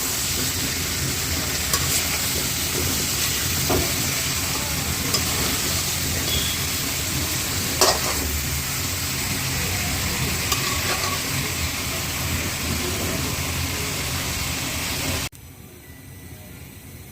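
Chicken korma sizzling as it fries in a pan, with a few sharp knocks of a utensil against the pan as it is stirred. About fifteen seconds in, the sizzle drops suddenly to a much quieter steady hiss.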